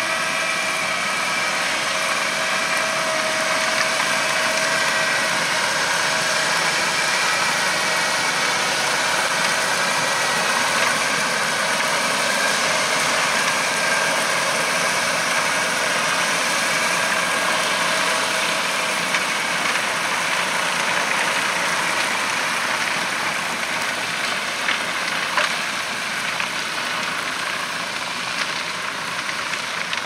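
Vervaet Hydro Trike self-propelled muck spreader running steadily as it drives across the field spreading sewage sludge. A steady high whine sits over the engine for roughly the first twenty seconds.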